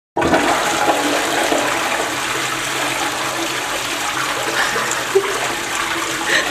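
Toilet flushing: a steady rush of water into the bowl, starting abruptly at the very beginning.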